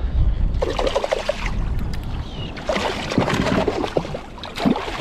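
Water splashing and sloshing at the side of a small fishing boat in uneven spells of a second or so, as a hooked false albacore is brought alongside.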